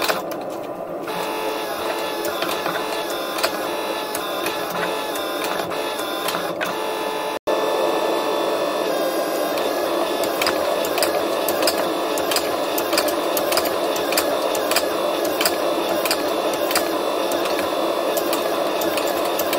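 Hydraulic forging press running steadily, its pump and motor humming with a rapid run of sharp ticks, while it squeezes a hot damascus billet. The sound breaks off for an instant about seven seconds in, then carries on a little louder.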